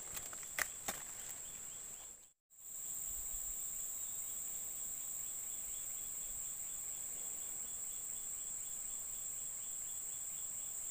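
Steady chorus of insects, a continuous high-pitched buzz with a faint pulsing underneath. A few sharp clicks sound in the first second, and the sound cuts out for a moment about two seconds in.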